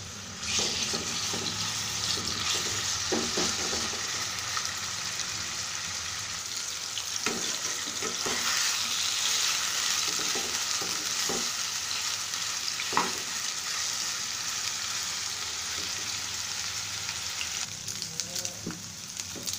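Marinated boneless chicken pieces sizzling steadily as they pan-fry in hot oil in a nonstick kadai, the sizzle starting about half a second in. A plastic spatula stirs and taps against the pan now and then.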